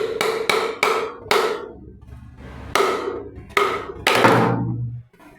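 Small hammer tapping a metal end cap to knock it loose: a string of sharp, ringing metallic strikes, about four in quick succession, a short pause, then several more, the last one ringing longest.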